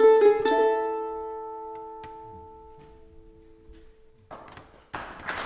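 Two mandolins, a Phoenix and a Petri Hakala, strike the final chord of a schottis, and it rings out and slowly fades over about three seconds. Near the end the audience breaks into applause.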